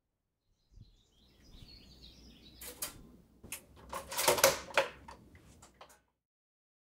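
A pop-up toaster being handled by hand: a few sharp clicks, then a cluster of metallic clicks and rattles about four seconds in, fading out just before the end. Faint bird chirps come before the clicks.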